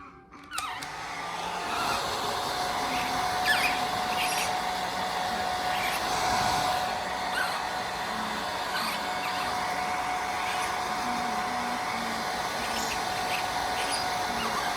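Hair dryer switched on about half a second in, then blowing steadily with a constant whine over the rush of air.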